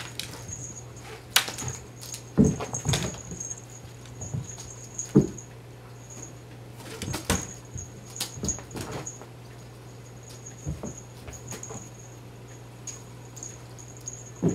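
Cats leaping at a feather wand toy: about eight irregular thumps and scrabbles of paws landing and pushing off, over a steady low hum, with a faint high whir that comes and goes.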